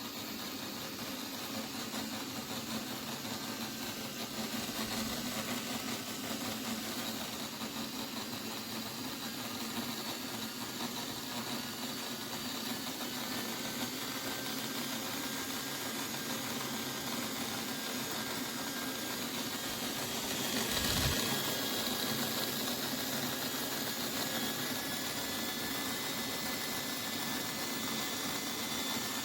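A small motor running steadily with a faint high whine, and one brief knock about twenty seconds in.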